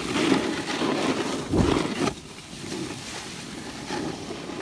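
Snowboard base and edges scraping over crusty, bumpy snow, with a heavy thump about a second and a half in; the scraping then eases off and goes quieter.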